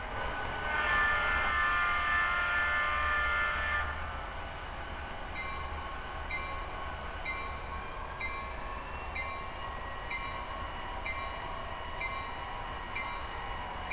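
Digital Loksound sound decoder of an HO scale model diesel locomotive: a horn chord sounds for about three seconds, then the locomotive bell rings steadily about once a second. A faint tone slides upward partway through the bell ringing.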